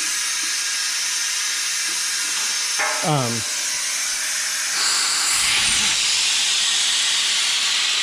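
Compressed air hissing steadily out of the air compressor's automatic tank drain valve, which is leaking or stuck open. About five seconds in the hiss gets louder and brighter.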